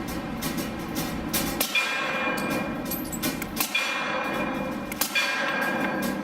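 Suppressed shots from an H&K P30 pistol in .40 S&W with an AAC Tirant 45M suppressor, fired about every one and a half to two seconds. A ringing metallic clang follows three of them.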